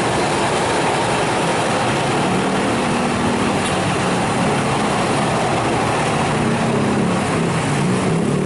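Heavy road vehicle's engine running loud over steady road noise, its low engine note wavering and coming up about two seconds in.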